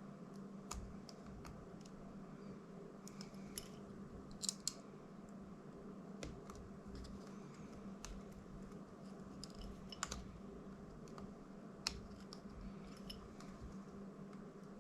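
Faint, scattered small clicks and ticks of hand tools handling small drone parts, with a few sharper clicks, over a steady low hum.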